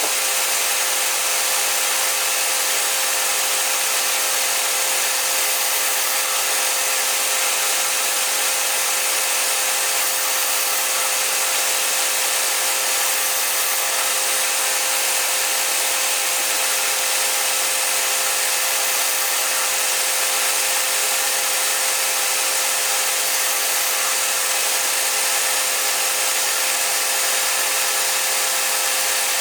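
Metal lathe running steadily while turning down a hammer handle: a constant hiss with a steady whine, unchanged throughout.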